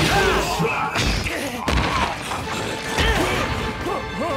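Fight sound effects: a few heavy hit impacts, about a second apart early on and again about three seconds in, over dramatic background music.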